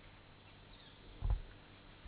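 Quiet woods with a faint, short, high falling bird chirp, then one dull low thump a little past a second in.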